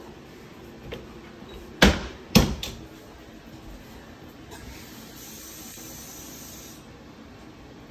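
Two sharp knocks about half a second apart, about two seconds in, from a kitchen cabinet door banging, then a faint steady hiss for about two seconds.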